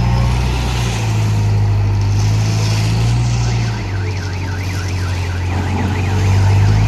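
Diesel engine of a self-loading concrete mixer running steadily. About halfway through, a fast warbling, siren-like alarm tone joins it, going up and down about three to four times a second.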